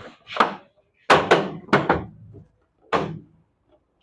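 A series of knocks and thuds as a washing machine's cover panel is handled and set into place, about six sharp impacts, most of them bunched together between one and two seconds in.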